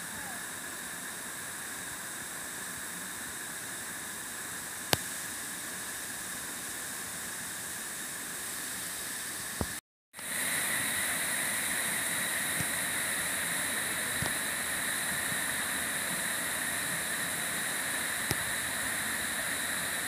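Steady rushing hiss of a tall waterfall's water falling onto rocks, with one sharp click about five seconds in. Near the middle the sound cuts out for a moment, and afterwards the rushing is louder.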